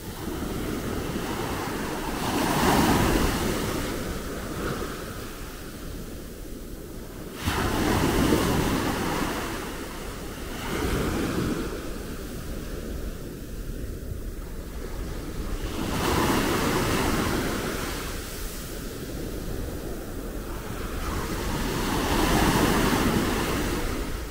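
Small sea waves breaking and washing up a beach, swelling and receding in about four surges, the sharpest coming in suddenly about seven seconds in. Wind buffets the microphone underneath.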